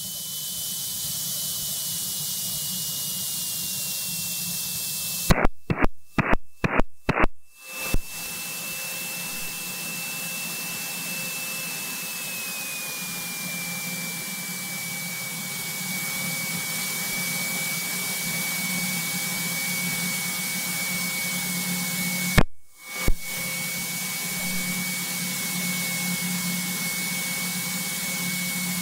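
Light aircraft cabin noise on final approach: a steady rush of engine and airflow with a thin whine that steps down in pitch twice, a little after four seconds and again around thirteen seconds. Broken by a quick run of clicks and brief dropouts from about five to eight seconds in, and two more clicks around twenty-two seconds.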